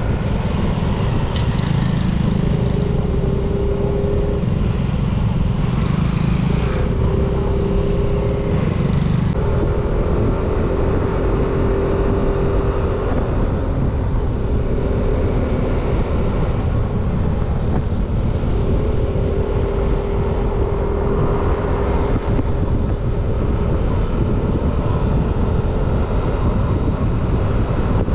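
Yamaha Aerox 155 scooter cruising on the open road: a steady engine hum that fades in and out under constant wind rumble on the microphone.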